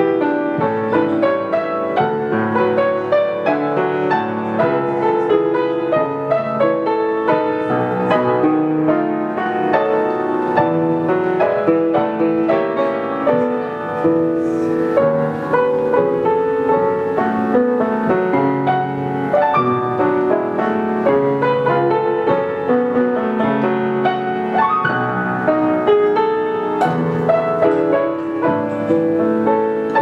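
A 19th-century Schröder grand piano played solo: an unbroken flow of melody and chords.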